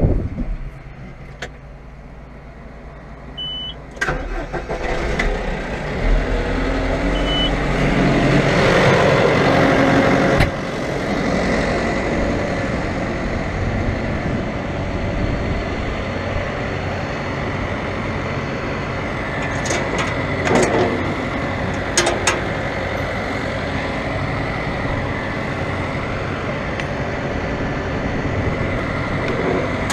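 Diesel engine of large harvest machinery. After a quieter start it comes up sharply about four seconds in, runs louder for several seconds, drops back suddenly, and then runs steadily, with a few sharp clicks partway through.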